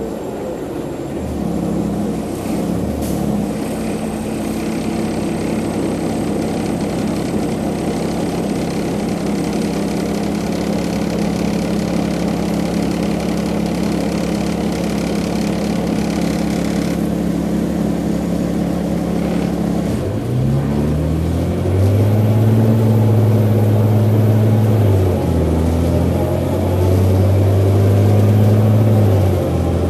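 Cummins ISL diesel engine of a 2002 New Flyer D40i Invero transit bus idling steadily, then about two-thirds of the way in revving up as the bus pulls away. The pitch climbs, drops, and climbs again, as the Allison B400R automatic transmission shifts up twice.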